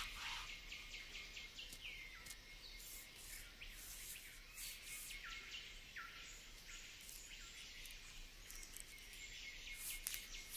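Faint tropical forest ambience: a bird repeating short calls that each drop in pitch, about one a second, over a steady high insect buzz with scattered ticks.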